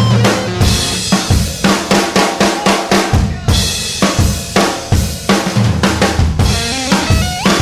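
Noise-rock band playing loudly, led by a busy drum kit with bass drum, snare and cymbal hits, under pitched guitar or keyboard lines; one line slides upward near the end.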